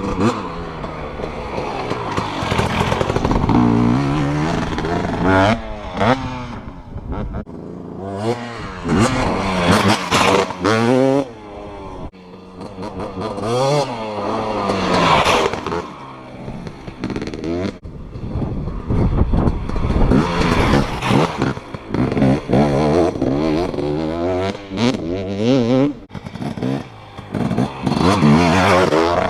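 KTM dirt bike engine being ridden hard around a motocross track, revving up and dropping back again and again as it shifts, the note growing fainter and louder again several times as the bike laps past.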